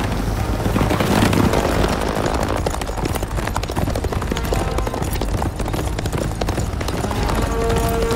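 Several horses galloping: rapid, irregular hoofbeats over a low rumble, with film music underneath and a held note coming in near the end.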